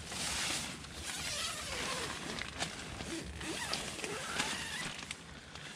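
Nylon tent fabric and camping gear rustling as they are handled, with the rasp of a zip and a few small clicks.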